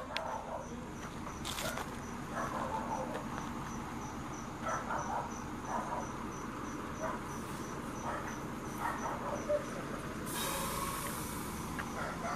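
Cricket chirping steadily, about three short high chirps a second, with faint distant voices and a short hiss about ten seconds in.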